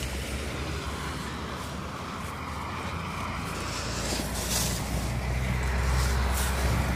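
Engine running with a steady low drone that grows louder from about halfway through.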